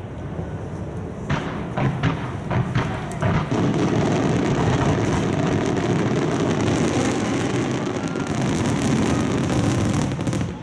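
Aerial fireworks exploding: a few separate sharp shell bursts about a second in, then from about three seconds in a dense, continuous barrage of booms and crackle.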